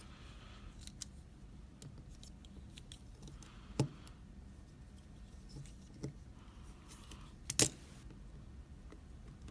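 Small metallic clicks and ticks of lock picks and a tension tool working inside a Sargent Keso mortise cylinder, with two louder sharp clicks, about four seconds in and near the end.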